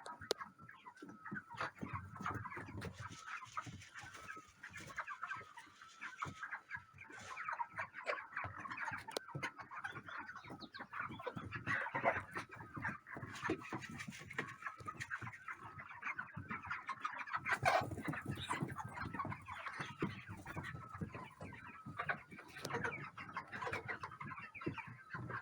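A flock of chickens clucking, many birds calling over one another at once.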